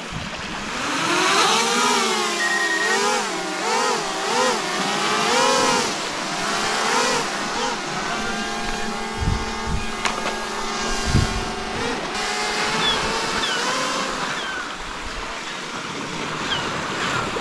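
Fishing drone's propellers whining, the pitch swinging up and down again and again as the motors adjust, then holding a steadier tone from about halfway through. A few low thumps come near the middle.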